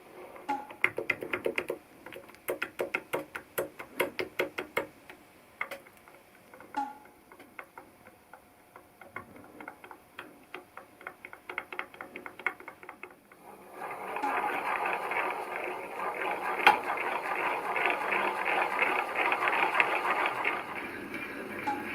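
Metal engine parts clicking and ratcheting in quick irregular ticks for the first dozen seconds or so, then a steady, louder rattling whirr through the rest.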